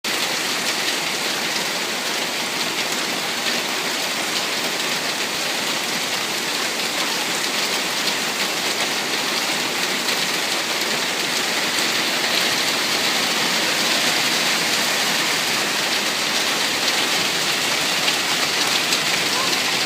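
Steady rain falling and pattering on surfaces, a dense, even hiss that holds at one level throughout.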